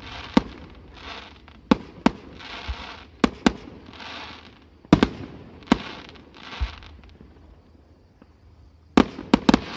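Fireworks display: separate sharp bangs of shells bursting every second or so, with short stretches of hiss between them, and a quick cluster of several bangs near the end.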